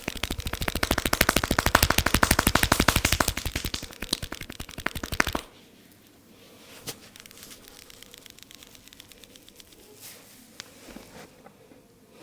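Rapid percussive massage: hands slapping and tapping in an even, very fast rhythm of about ten strikes a second. It stops suddenly about five seconds in, followed by much quieter rubbing with a few faint taps.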